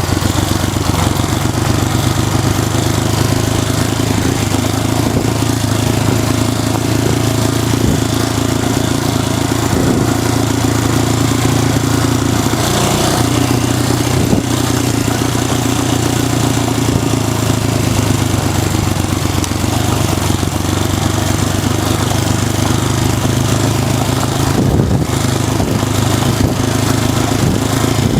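Honda XL250S single-cylinder four-stroke engine running at a fairly steady pace while the bike is ridden, with a steady rushing noise over it.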